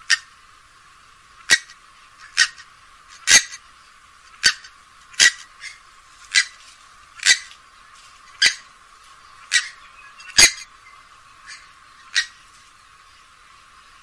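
Grey-headed swamphen giving short, sharp call notes, about a dozen of them at roughly one a second.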